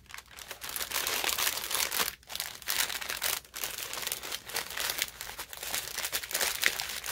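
Paper packaging crinkling and rustling as it is carefully unwrapped by hand: a translucent paper wrapper and a brown kraft paper bag. A near-continuous crackly rustle, with short pauses about two and three and a half seconds in.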